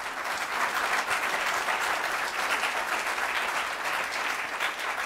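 Audience applauding, many hands clapping, swelling in the first second and then holding steady.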